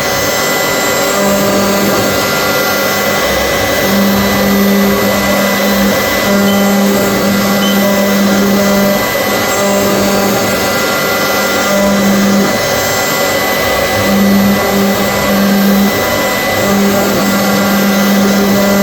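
CNC machine running: a loud, steady whining noise, with a low hum that switches on and off in irregular stretches of half a second to two seconds.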